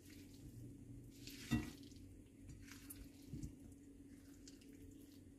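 Faint wet squishing and scraping of a utensil stirring mayonnaise-coated potato salad in a glass bowl. A small knock of the utensil comes about a second and a half in, and a lighter one later.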